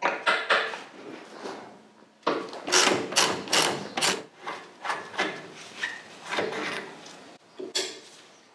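Hand tools and metal parts being handled: a run of irregular clanks and rattles, quickest a couple of seconds in, then fewer and further apart.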